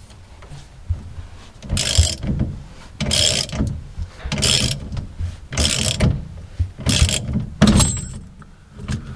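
Socket ratchet wrench being cranked in repeated strokes, a burst of ratchet clicking about every second and a bit, six times.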